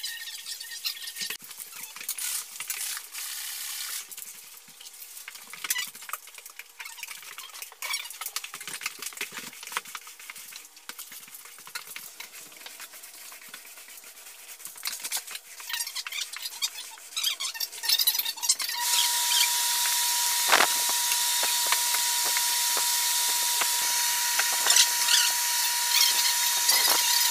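Scattered squeaks and scuffs from finishing work on a wood floor, a rag wiping and a roller spreading finish over the boards. About two-thirds of the way in, a steady machine hum with a constant whine starts and runs on, louder than the squeaks.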